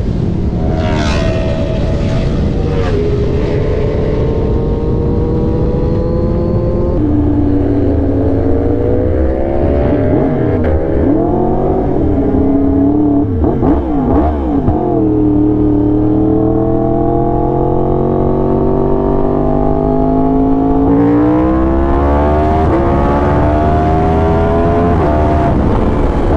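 2019 Yamaha R1's crossplane inline-four with an SC Project exhaust, heard from on the bike under way. The revs climb and drop through gear changes, hold steady for several seconds, and rise again near the end, over a low rumble of wind and road noise.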